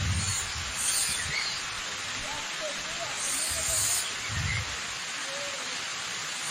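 Waterfall rushing steadily, with small birds chirping over it in short scattered notes.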